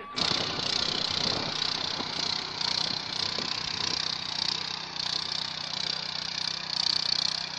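Texas TX 601 walk-behind power tiller running steadily with its engine under load as the tines work through dry soil.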